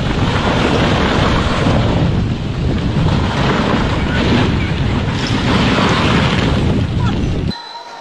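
Rockfall crashing down a cliff face onto a road: a loud, continuous, heavy rumble of falling rock and debris, with wind buffeting the microphone. It cuts off suddenly about seven and a half seconds in.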